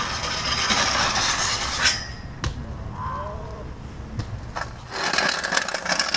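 Stunt scooter grinding along a metal handrail: a loud scrape of metal on metal for about two seconds, then a sharp clack as it lands. A second, rattling grinding scrape starts near the end.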